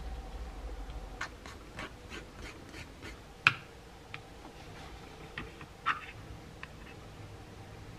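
Small clicks and taps of styrene plastic sheet and parts handled by fingers and set on a cutting mat, with one sharper click about three and a half seconds in and another near six seconds.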